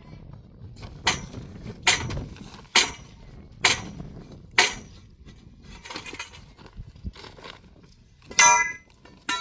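Five sharp blows about a second apart, followed by a few softer knocks and a short high-pitched cry near the end.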